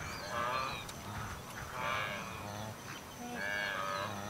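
Blue wildebeest calf calling three times, each call well under a second: the contact call of a calf separated from its mother.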